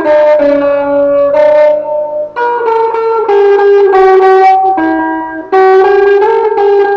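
Instrumental music: a melody of held notes, each lasting from about half a second to a second, stepping up and down in pitch, with short breaks between phrases.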